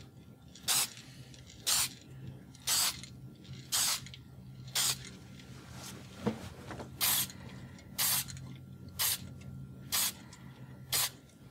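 Aerosol can of white paint spraying in short bursts, about one a second, ten in all, with a pause of about two seconds in the middle. The bursts are quick passes laying a coat of white colour over a filled edge repair.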